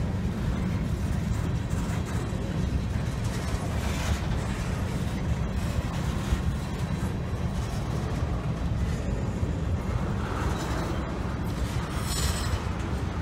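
Freight train of covered hopper cars rolling past close by: a steady low rumble of wheels on rail, with short higher-pitched flare-ups about four seconds in and again near the end.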